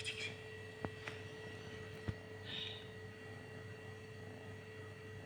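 A steady hum with a few faint clicks and a short soft hiss about two and a half seconds in.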